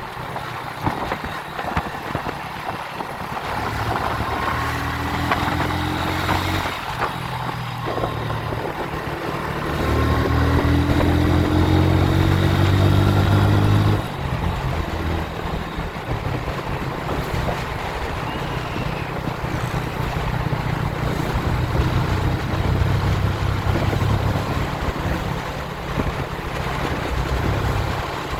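Motorcycle engine running on the move, with wind rushing over the microphone. The engine picks up twice with a rising pitch and is loudest for a few seconds about halfway through, then drops off suddenly.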